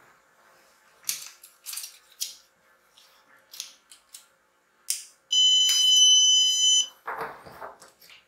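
Plastic parts of a Jimu Meebot 2.0 building-kit robot clicking and rattling as it is handled, then a loud, steady electronic beep lasting about a second and a half, about five seconds in, followed by a short rustle of handling.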